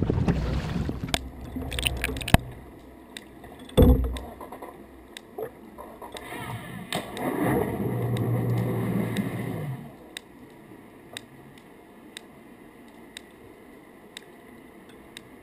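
Echo sounder of an acoustic Wave Glider pinging about once a second, heard underwater as short sharp clicks. Water sloshes and gurgles through the first part, with a loud knock about four seconds in.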